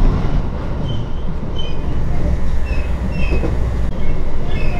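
Echigo Tokimeki Railway train running with a steady heavy low rumble, with short high-pitched chirps scattered through it.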